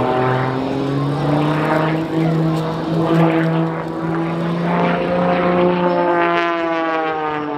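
Edge 540 aerobatic plane's engine and propeller running at high power as it dives out of a spin and pulls out. The pitch rises about a second in, holds steady, then falls near the end.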